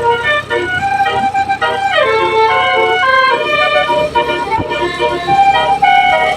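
Basuri telolet horn on a tour bus playing a melody, stepping from note to note about two or three times a second, with a falling slide about two seconds in.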